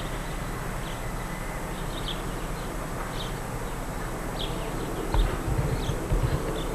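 Garden ambience: small birds chirping now and then in short high notes over the steady hiss and low hum of an old camcorder tape, with a few low thumps on the microphone near the end.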